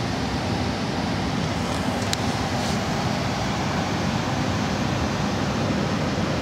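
Steady rushing air noise inside a Boeing 747-400 cockpit on the ground: the air conditioning and equipment cooling fans running, with a faint click about two seconds in.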